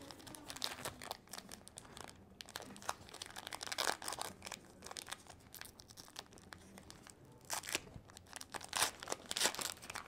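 Wrapper of a baseball card pack being crinkled and torn open by hand: a run of short crackles and rips, louder around four seconds in and again from about seven and a half seconds on.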